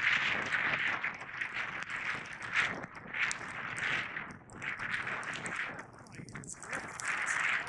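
Skis scraping and swishing over snow, swelling and fading with each turn.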